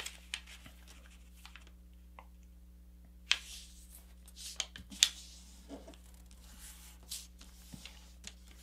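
A sheet of paper being folded by hand and pressed flat: soft rustling with a few short, sharp swipes as the crease is run down, the loudest about three and five seconds in.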